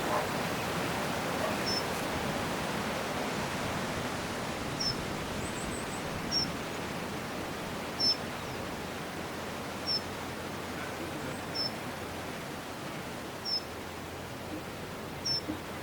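Steady wind rushing through trees and hedges, with a small bird repeating a short, high single call about every two seconds and giving one brief higher trill.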